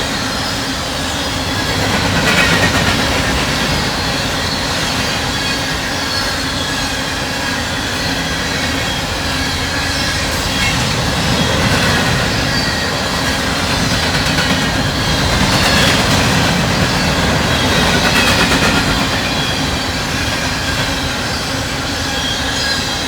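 Norfolk Southern coal train rolling past at speed: a steady, loud rumble of freight cars on the rails with a thin, high wheel squeal over it.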